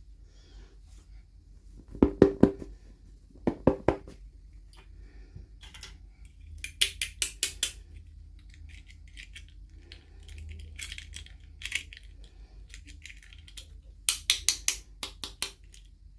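Small plastic toy pieces and packaging being handled: quick runs of sharp clicks and taps, heard as several separate bursts, the first two duller and lower, the later ones crisper.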